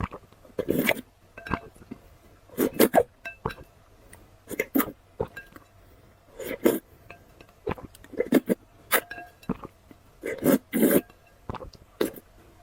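Close-miked eating and drinking mouth sounds: repeated short slurps and gulps, roughly one or two a second, with sharp wet clicks in between.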